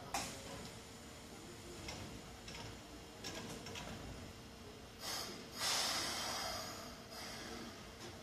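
Pneumatic doors of a Keikyu 800 series train closing: a short hiss of air about five seconds in, then a longer, louder rush of escaping air that fades over about a second. Under it runs a steady hum, with a click near the start.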